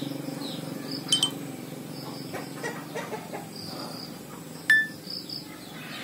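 Birds chirping repeatedly in the background. A brief electronic double beep sounds about a second in, and a sharp short beep comes near five seconds, from a Nokia E71 playing previews of its short alert tones.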